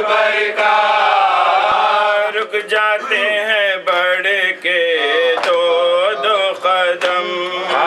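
A man chanting an Urdu nauha (mourning lament) solo into a microphone, with no instruments. For about the first two seconds he holds long, wavering notes, then moves on through shorter sung phrases.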